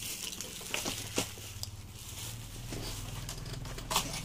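Handling noises from unpacking a cardboard TV box: scattered knocks, scrapes and rustling of plastic wrap and packing, the sharpest knock near the end, over a steady low hum.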